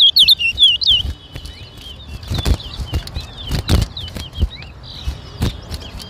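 Twa-twa (large-billed seed finch) singing a run of quick, high whistled notes for about the first second, then only faint twittering. Several sharp knocks come through the rest, two of them louder than the others.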